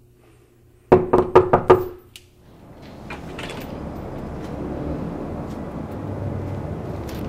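A quick run of five or six sharp knocks, all within about a second. After them a steady rushing noise swells up and holds.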